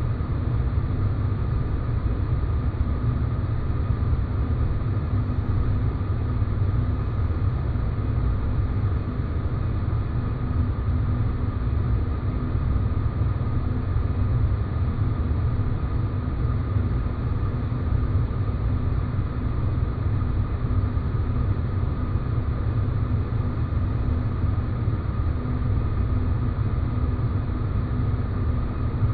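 Space-planet ambience sound effect: a steady low rumbling drone with faint held tones above it, unchanging throughout.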